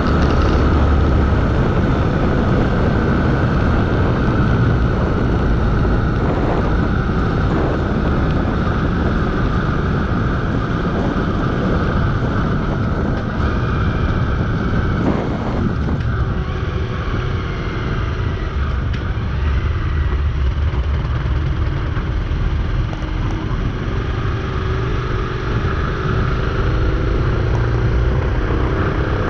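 Motorcycle riding at a steady speed, its engine running under wind rushing over the microphone; the engine note shifts a little in the second half.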